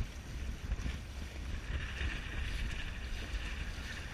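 Wind buffeting the microphone aboard a sailing dinghy under way, with a hiss of water along the hull that grows louder about two seconds in.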